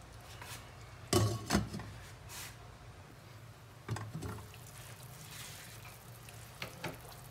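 Glass lid knocking and clinking against a stainless steel cooking pot as it is put on: a couple of sharp clinks about a second in, another knock around four seconds, then a few small clicks near the end, over a low steady hum.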